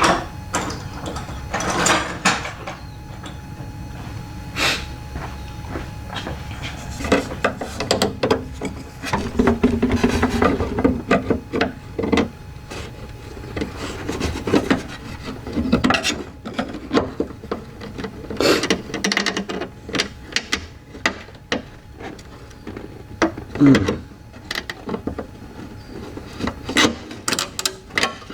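Irregular knocks, clicks and scraping of parts being handled and worked loose inside the door of a VW Passat B5 during a window regulator removal.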